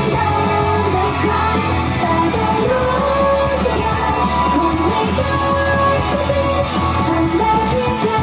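Idol girl group singing live into handheld microphones over a loud pop backing track with steady bass and beat.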